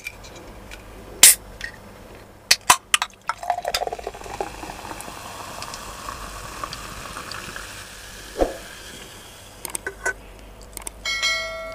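A 7-Up soda can cracked open with a sharp click about a second in, then the soda poured into a glass mug, gurgling and fizzing for several seconds. There is a knock a little after the pour ends and a short ringing clink near the end.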